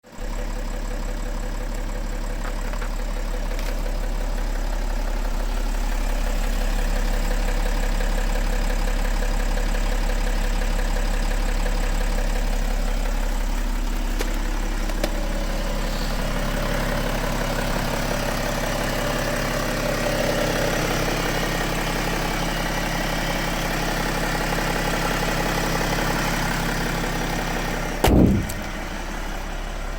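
BMW X3's M57 inline-six diesel engine running steadily with a knock; the owner is unsure whether it comes from an injector, the crankshaft pulley damper or a connecting rod. Near the end a brief loud sound falls sharply in pitch.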